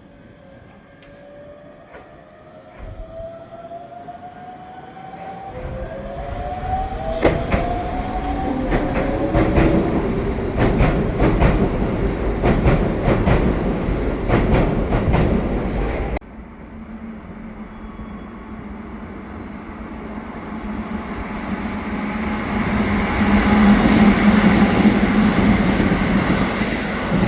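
Shibayama Railway 3600-series electric train going past: a rising motor whine in the first few seconds, then loud running noise with rapid wheel clicks over rail joints. About 16 s in the sound cuts off suddenly, and a second train passage with a steady low hum grows louder toward the end.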